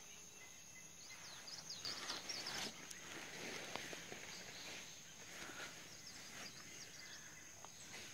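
Forest ambience: a steady high insect drone with short bird chirps, which come in a cluster between about one and three seconds in and again briefly after five seconds.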